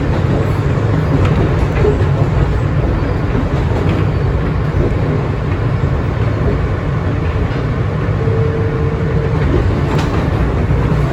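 Inside an R160B Siemens subway car running between stations, with a steady heavy rumble of wheels on rail. A brief steady whine comes in about eight seconds in.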